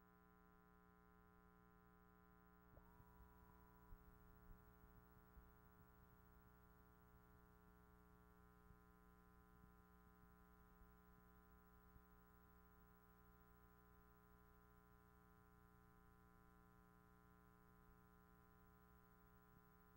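Near silence: a faint steady electrical hum, with a brief faint tone about three seconds in that lasts about a second.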